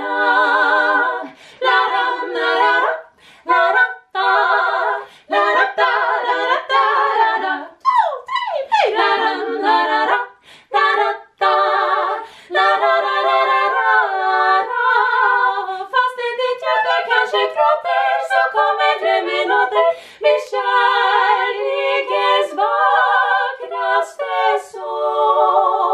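Three women singing a cappella in close harmony, phrase after phrase with short breaths between, and a swooping vocal glide about eight seconds in.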